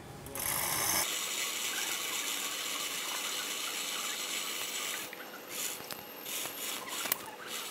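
Hand chain hoist ratcheting, its chain rattling through as it is pulled hand over hand to lift a hanging spot welding gun. The rattle is steady for about four seconds, then breaks into scattered clinks near the end.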